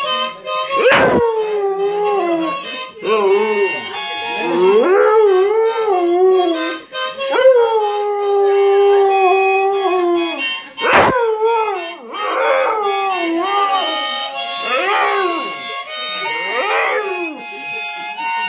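Siberian husky howling along with a harmonica: a string of howls that glide up and down in pitch, some drawn out for a few seconds, over the harmonica's chords.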